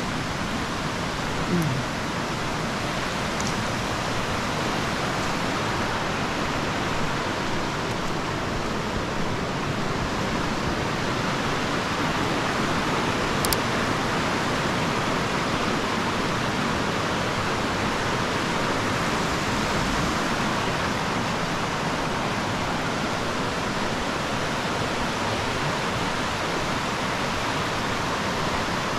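Shallow stream rushing over stones, a steady, even rush of water.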